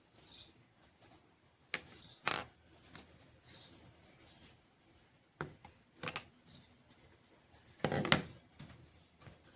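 A few scattered sharp clicks and knocks, with quiet room tone between them.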